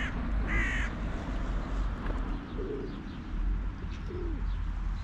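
A crow caws once about half a second in, followed by a few low pigeon coos, over a steady low rumble.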